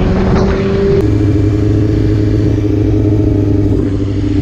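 Motorcycle engine running while riding, with wind noise on the microphone. The engine note steps down about a second in, then holds steady.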